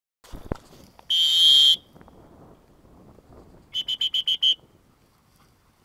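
A dog training whistle: one long blast, then, a couple of seconds later, a quick run of about six short pips. A short knock comes just before the long blast.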